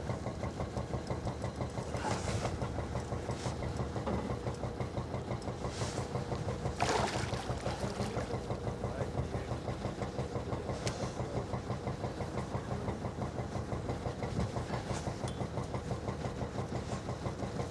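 An engine idling with a steady, even throb. A few brief rushing noises break through, the loudest about seven seconds in.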